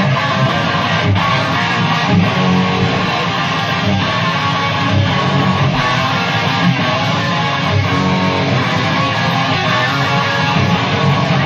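Live band playing, led by strummed electric guitars with bass underneath.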